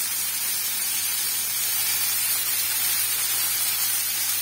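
Egg-and-flour-coated chicken strips shallow-frying in hot vegetable oil in a pan: a steady sizzle.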